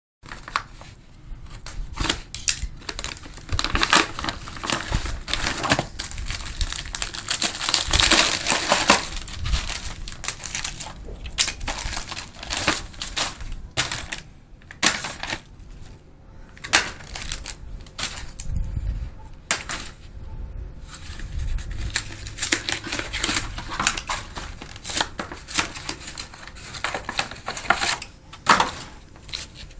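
Plastic MRE packaging being handled, crinkling and crumpling in irregular bursts with sharp clicks.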